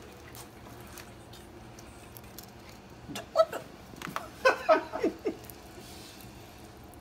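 A person laughing in a run of short, loud bursts, starting about three seconds in and stopping a couple of seconds later, after a stretch of quiet room tone.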